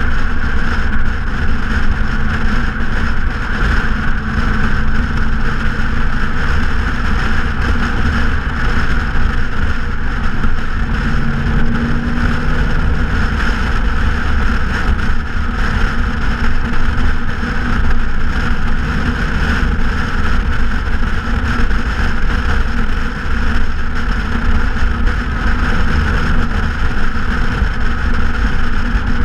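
Straight-piped 5.0 L V8 of a 2014 Ford Mustang GT cruising at highway speed: a steady low exhaust drone mixed with wind and road noise.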